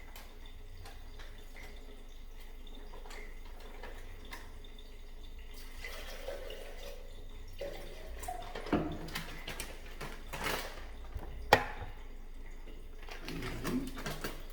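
Water running and being poured into a cup to mix a powdered drink, with scattered clinks and one sharp knock about three-quarters of the way through.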